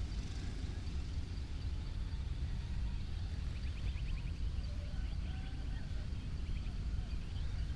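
Village dawn ambience: a steady low rumble under faint bird calls, with a quick rapid trill about three and a half seconds in and another around five seconds.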